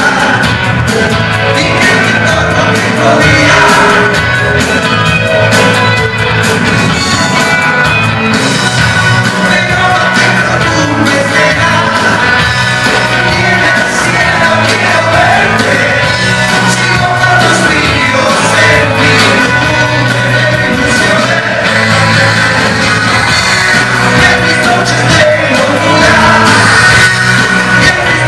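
Live rock band playing: a lead singer over electric guitars, drums and keyboard, heard loud from within the audience.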